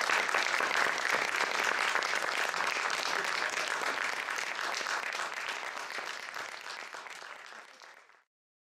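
Audience applause, a dense patter of clapping that fades gradually and then cuts off abruptly to silence about eight seconds in.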